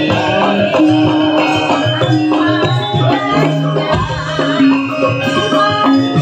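Live Javanese gamelan music with hand drumming, played at a lively, even pace to accompany dancing.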